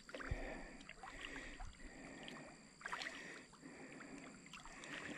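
Faint sloshing and lapping of water from a hooked catfish being played just under the pond's surface, coming in short stretches of about a second each.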